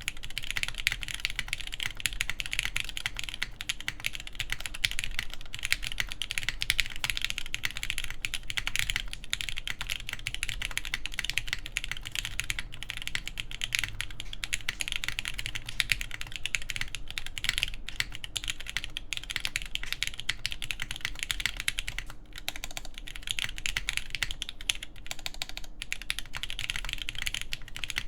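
Continuous fast typing on a TKD Pt 1/75 mechanical keyboard with Everglide Tourmaline Green v2.5 switches lubed with 205g0 and filmed, a forged carbon fiber plate and GMK keycaps: a dense run of keystroke clicks. The typing dips briefly about two thirds of the way in.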